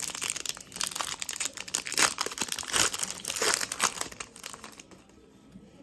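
Plastic trading-card wrapping being torn open and crinkled by hand, a dense crackling that dies away about four and a half seconds in.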